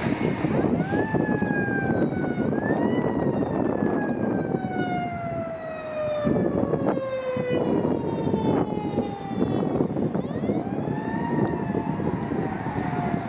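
Siren wailing: a tone that rises quickly and then falls slowly over several seconds, three times, over steady traffic and wind noise.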